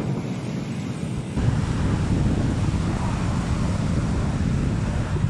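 Strong wind buffeting the microphone over the wash of breaking surf. The low rumble of the wind gets heavier about a second and a half in.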